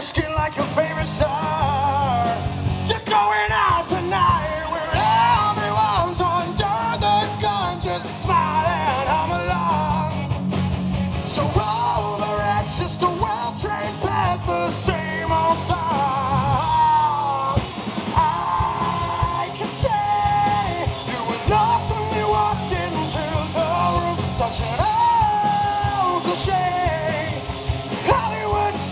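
Live rock band playing: a male lead vocal singing over electric guitars, bass and drums, loud and dense throughout.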